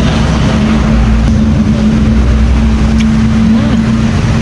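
A motor running steadily: a loud, constant low rumble with a steady hum, and a couple of faint clicks.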